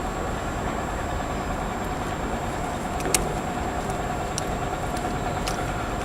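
Class 333 electric multiple unit standing at the platform with a steady hum from its running equipment, and a single sharp click about three seconds in.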